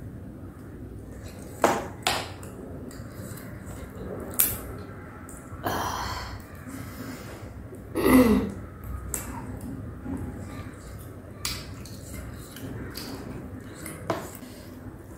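Cooked prawn and crab shells being peeled and cracked by hand: scattered crisp cracks and clicks, a few seconds apart, the loudest about eight seconds in.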